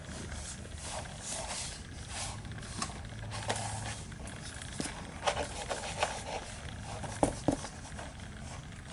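A rubber grooming brush swishing through a cat's fur in quick repeated strokes, over the cat's steady low purr. A few sharp taps sound in the second half.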